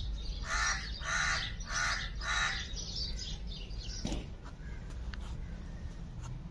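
Pet parakeet giving four harsh calls in a row, about two-thirds of a second apart, followed by a few fainter chirps.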